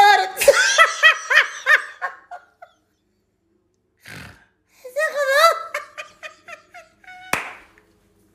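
A man laughing hard in a high, giggling voice. There is a run of quick laughs at the start, a breath in, and then a second run. A single sharp click comes near the end.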